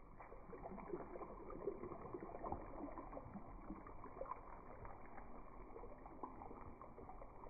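Water poured in a steady stream from a jug into a hot pan of browned oxtails, splashing onto the meat and pan juices with irregular small crackles. It sounds dull and muffled, with no high end.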